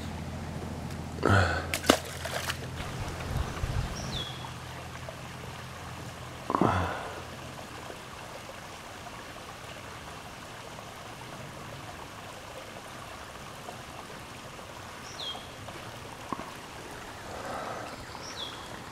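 Quiet creekside ambience with a faint trickle of running water and a few brief splashy noises in the first seven seconds. A small bird gives a short falling chirp three times.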